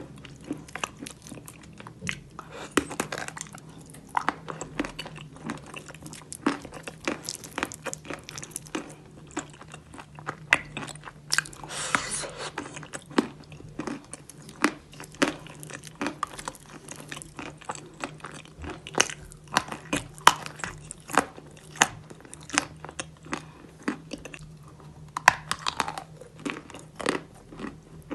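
Close-up chewing of chalk and clay paste: dense, sharp crunching clicks, with a few louder bites at about 3, 12 and 25 seconds in.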